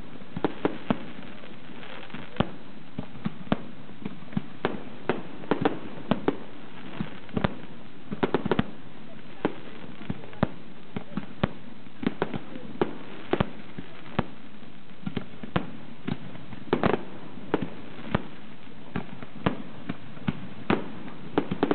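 Aerial fireworks display: shells bursting and going off in a steady stream of sharp, irregular bangs, about two a second.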